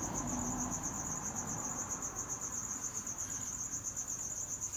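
Crickets chirping: a steady, high-pitched pulsing trill with many quick pulses a second.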